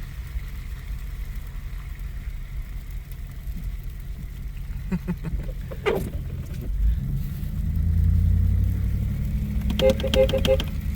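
Pickup truck's engine and road noise heard inside the cab, a low steady rumble that swells about seven seconds in as the truck pulls off and accelerates.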